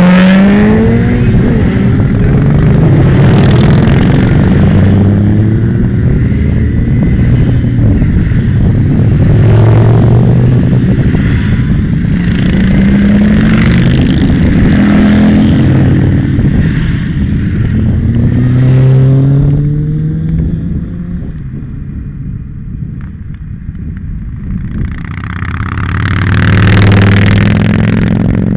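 A procession of motorcycles accelerating past one after another, each engine's pitch rising as it revs up through the gears. The sound thins out about two-thirds of the way through, then one more loud pass comes near the end.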